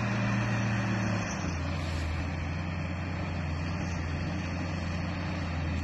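Engine of a heavy vehicle running steadily, its pitch dropping to a lower, steady speed about a second in.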